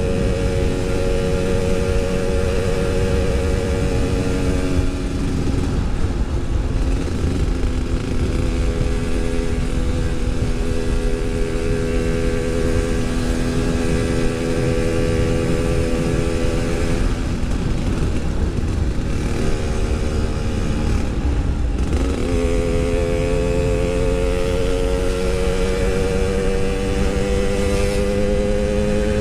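Yamaha RX-King's two-stroke single-cylinder engine running under way, with a low rumble of wind beneath it. The engine note holds steady, drops about five seconds in and again around twenty-one seconds, then rises steadily as the bike accelerates.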